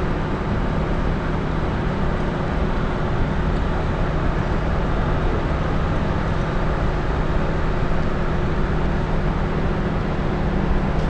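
City street traffic noise: a steady, dense low rumble with a faint hum.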